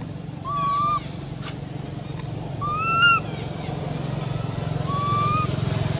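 Three drawn-out, clear, slightly arching calls from a macaque, each about half a second long and spaced about two seconds apart; the middle one is the loudest. A steady low hum runs underneath.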